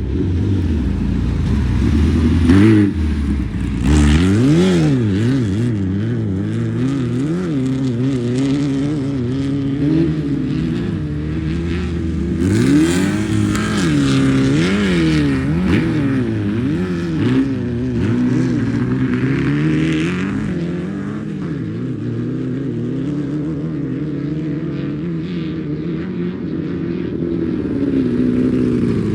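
Off-road race vehicle engines revving, their pitch rising and falling over and over as vehicles drive through, with rushes of noise about 3, 13 and 20 seconds in.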